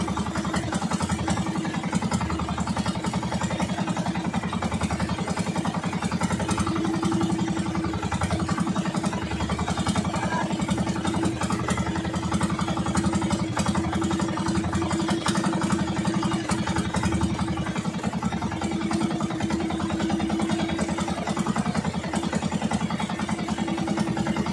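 Small outrigger fishing boat's engine running steadily at an even speed, an unbroken low drone, the boat under way.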